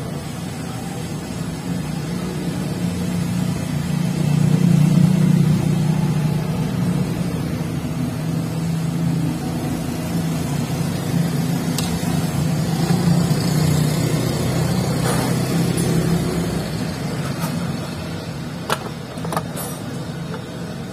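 Steady low mechanical drone of a running motor or engine, swelling about five seconds in, with a few light sharp clicks near the end.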